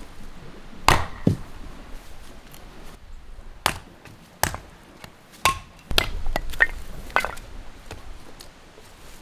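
A series of about nine sharp, irregular knocks and clacks, several close together in the middle, a few ringing briefly with a clear tone.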